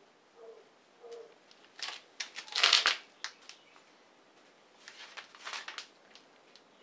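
Clinking and rattling of metal being handled at a machine vise, in two short clusters, the louder one about two and a half seconds in and a softer one about five seconds in.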